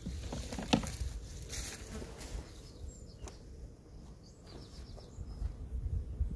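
An overwintered honeybee colony buzzing in an opened hive, with a couple of sharp clicks.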